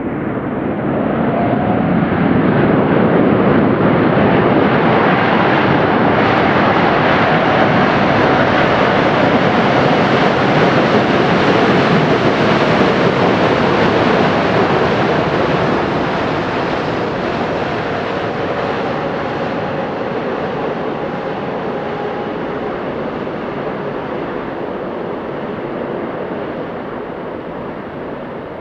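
Boeing 787-8's Rolls-Royce Trent 1000 turbofans running at reverse thrust during the landing roll. It is a loud, steady jet noise that swells over the first few seconds, holds, and then slowly fades through the second half as the aircraft slows.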